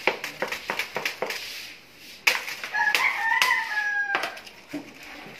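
A rooster crows once in the middle, a call about a second and a half long that rises and then holds. Before it comes a quick run of metal knocks and clinks as the rusty steel core of an old welding machine is worked apart with a hammer.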